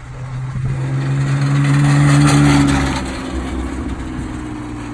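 BMW coupe driving past, its engine hum and tyre noise growing to their loudest about two seconds in, then easing to a steady drone as it pulls away.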